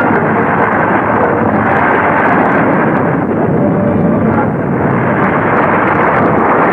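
Continuous rumble of an explosion and rockslide on an old film soundtrack, dull and without treble.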